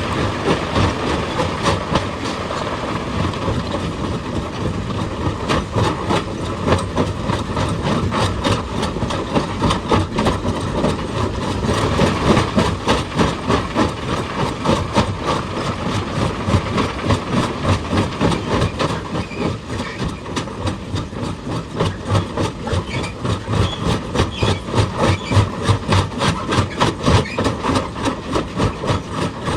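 Excavator-mounted hydraulic breaker hammering on rock: a fast, even run of sharp blows over the low running of the machine's engine.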